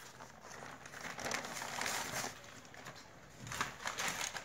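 Sheet of newspaper rustling and crinkling as it is handled, with a few sharper crackles near the end.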